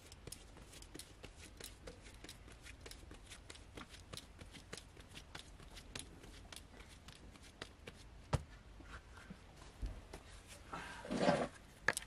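Hands kneading and handling soft bread dough in a plastic basin: a rapid patter of light clicks and rustles, a sharp thump about eight seconds in, and a louder burst of handling noise near the end.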